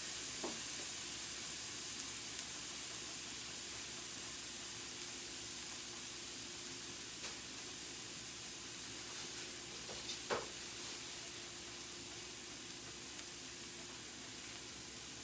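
Minced garlic sizzling in butter and olive oil on a hot stovetop griddle, a steady hiss that slowly fades, with a short click about ten seconds in.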